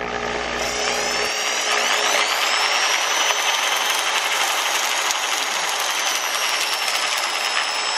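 Electric drill running, its bit boring a hole into the top of a styrofoam craft pumpkin. The motor whine rises in pitch over the first couple of seconds as it speeds up, then holds steady.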